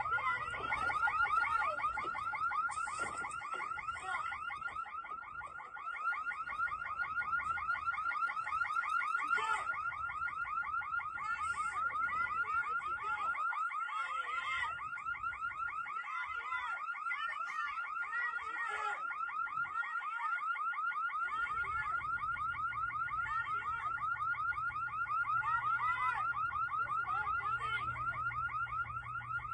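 Electronic alarm siren sounding without a break, a fast warble around one high pitch.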